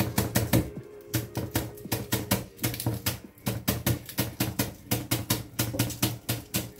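A chef's knife chopping green onions on a bamboo cutting board, a quick even run of about four to five taps a second, over background music.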